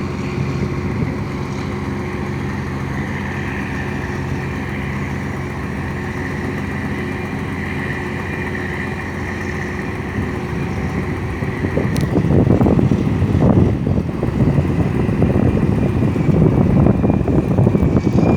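Tugboat's diesel engine running with a steady hum. About two-thirds of the way in there is a click, and a louder, gusty rumble of wind on the microphone builds over the engine.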